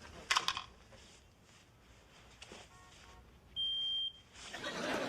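A smoke detector gives one high-pitched electronic beep, lasting under a second, about three and a half seconds in.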